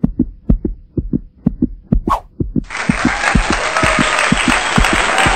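A heartbeat sound effect, low thumps in lub-dub pairs about twice a second. About halfway through, a crowd's cheering and applause comes in suddenly and carries on over the beat.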